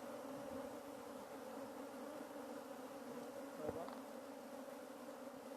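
A swarm of honeybees buzzing with a steady, even hum, with a single short tap about two thirds of the way in. Many of the bees are still outside the hive while the swarm settles in.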